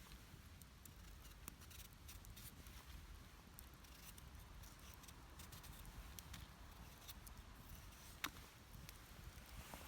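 Near silence broken by faint, scattered small clicks and ticks, with one sharper click about eight seconds in.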